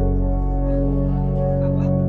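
Background music: sustained organ-like keyboard chords held steadily.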